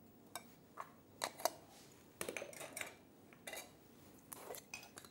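Light, irregular clinks and taps of kitchen utensils and dishes, about a dozen short knocks with a brief metallic or glassy ring.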